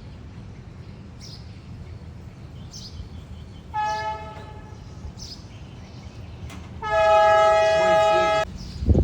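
A horn sounding twice at one steady pitch: a short blast, then a longer, louder one of about a second and a half. Faint high chirps repeat about every second and a half throughout.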